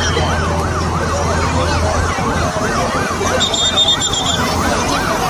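An electronic siren wailing in a fast up-and-down warble, nearly three sweeps a second, over the noise of a street crowd. A short high trilling tone sounds briefly about three and a half seconds in.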